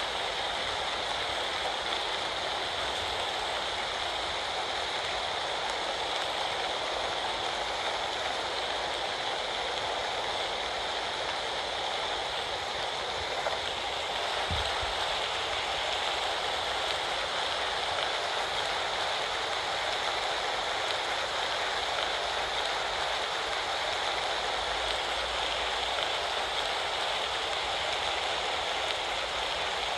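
Steady rain falling in a storm, an even unbroken hiss, with one brief low thump about halfway through.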